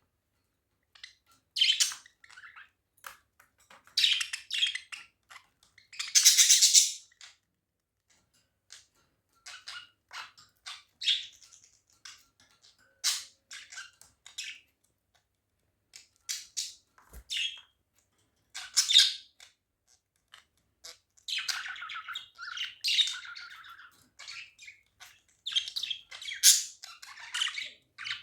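Budgerigars chirping and chattering in short irregular bursts with occasional squawks, the chatter growing busier near the end.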